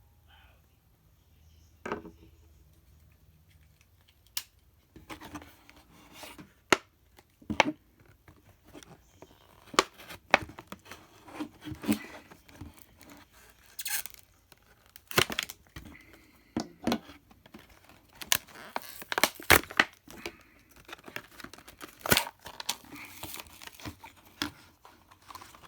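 Multimeter packaging being torn and pulled open by hand: irregular tearing and crinkling with sharp clicks and knocks, starting about two seconds in.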